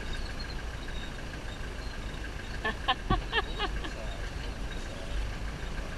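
Steady low rumble of an idling vehicle engine. About halfway through, a quick run of about six short pitched calls stands out above it, and a faint steady high tone runs underneath.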